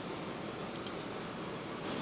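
Freshly lit oxyacetylene cutting torch burning with a steady rushing hiss, its flame still a yellow acetylene flame before the oxygen is set; it grows a little louder near the end.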